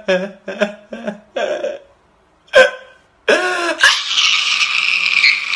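A man crying: short gasping sobs in quick succession, then after a brief pause a loud, sustained high-pitched wail from a little past the halfway point.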